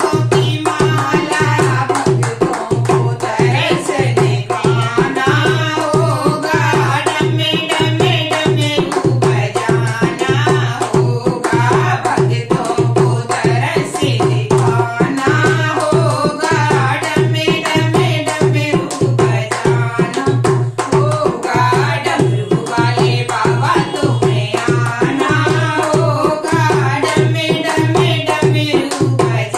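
Women's voices singing a Hindi devotional bhajan over a steady, quick dholak beat, with hand claps keeping time.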